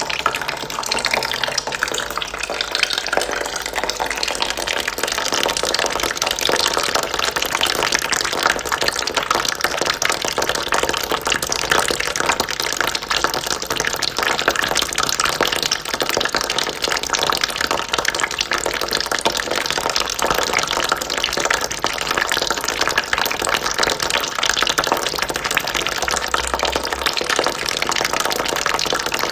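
Steady stream of water trickling and splashing into a bucket, running without a break at an even level.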